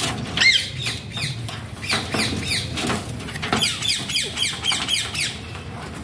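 A flock of parakeets, Alexandrine parakeets among them, calling in quick runs of short, sharp, falling chirps.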